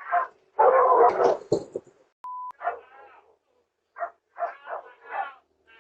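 A dog barking loudly in the first two seconds, then a short steady electronic beep, followed by a run of shorter, quieter barks.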